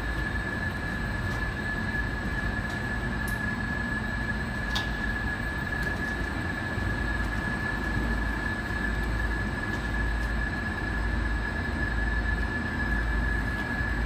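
Steady machine hum: a constant high-pitched whine over a low rumble, with one short click about five seconds in.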